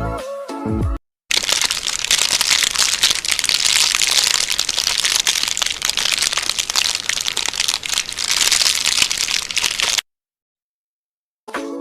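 Dense crackling and crinkling, like something crinkly being crumpled by hand, made of many tiny crackles at an even loudness. It runs for about nine seconds and cuts off abruptly. Music plays briefly at the very start, before a short gap.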